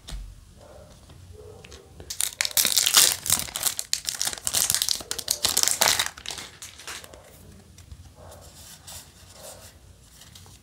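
A Yu-Gi-Oh! booster pack's foil wrapper torn open and crinkled: a dense crackling starting about two seconds in and lasting some four seconds, followed by quieter handling of the cards.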